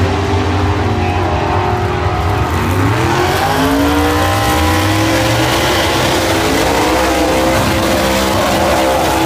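Drag-racing car's engine revving hard through a tyre-smoking burnout. Its pitch climbs about three seconds in and then holds high and steady.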